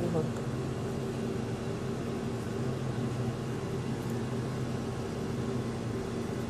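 A machine running with a steady low hum, which holds unchanged throughout.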